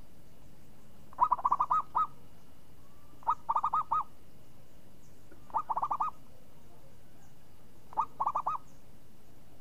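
Zebra dove (perkutut) singing: four phrases of its rapid staccato coo, each a quick run of five or six notes, spaced about two seconds apart.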